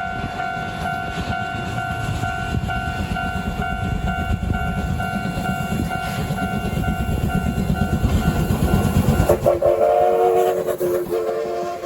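A Japanese railroad crossing's warning bell rings in a steady repeating clang over the loud rumble of a freight train passing. About nine seconds in, both cut off suddenly and a lower chord of steady tones sounds to the end.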